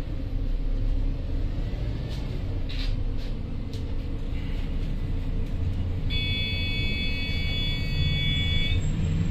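Volvo Caio Procity city bus running, a steady engine and road rumble with a few light rattles. About six seconds in, a high, steady buzzer-like tone sounds for nearly three seconds.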